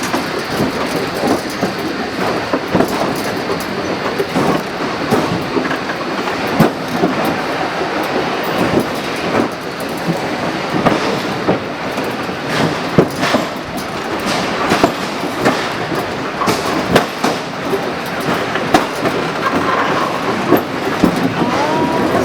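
Scenic Railway incline car running along its steep track, rattling and clattering steadily with many irregular clicks and knocks from the wheels and rails.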